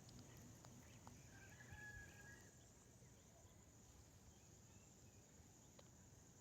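Near silence in the open air, with one faint, drawn-out bird call, likely a distant chicken, lasting about a second, about a second and a half in.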